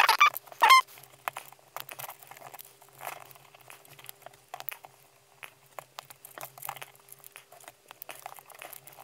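Side cutters snipping the thin power and ground leads of the ESCs to length, with scattered clicks and rustling as the wires and cutters are handled. There are two louder snaps in the first second.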